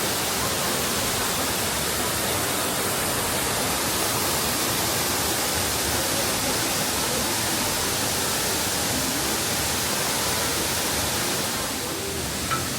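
Nunobiki Falls pouring: a steady rushing of falling water, dipping slightly near the end.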